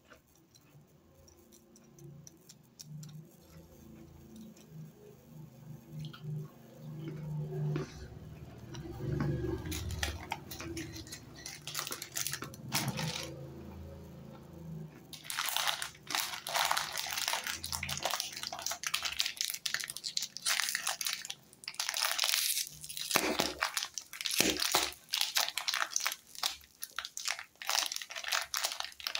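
Plastic biscuit wrappers crinkling and rustling as the packets are handled. The first half holds only quieter, muffled handling sounds, and from about halfway the crackling turns loud and dense as a Sunfeast Hi-Fi cashew cookie pack is picked up and turned in the hands.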